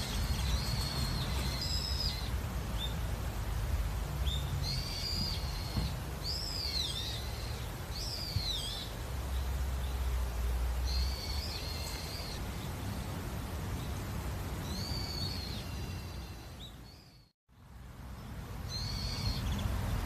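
Birds calling outdoors in short, repeated chirping phrases with a few rising-and-falling whistled notes, over a steady low rumble. About three quarters of the way through, everything fades out to silence for a moment and comes back.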